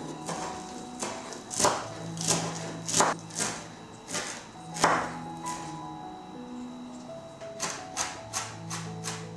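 Background music with steady held notes, with about four loud, sharp knocks in the first half and a quicker run of lighter clicks near the end.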